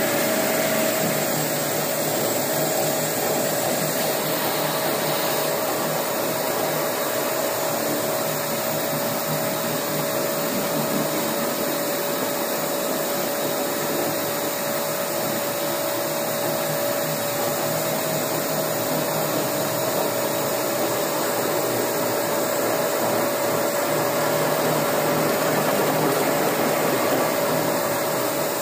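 Walk-behind concrete floor grinder-polisher running steadily with resin-bond diamond pads on the concrete slab: a continuous whir with a steady hum.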